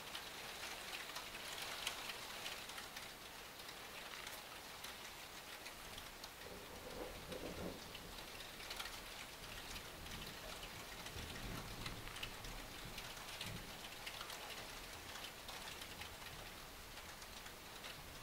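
Heavy rain falling steadily outside, a constant patter of many small drops.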